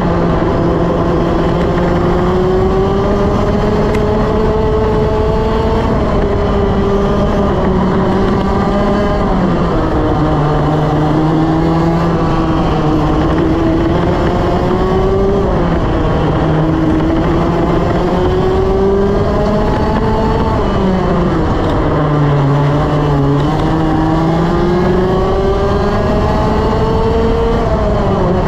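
Two-stroke TaG racing kart engine at race pace, heard from onboard: the engine note climbs steadily along each straight and drops sharply into the corners, about four times, over a constant rush of wind and tyre noise.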